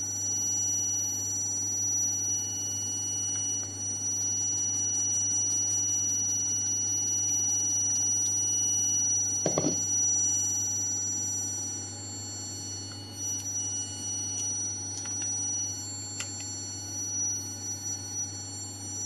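Steady low electrical hum with several thin, high-pitched whining tones held over it. A short handling clatter comes about halfway through.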